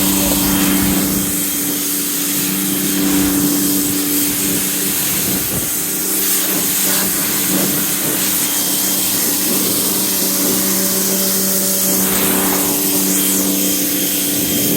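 Pressure washer running with a steady motor hum while its jet sprays water over a car, rinsing it down after a pre-wash.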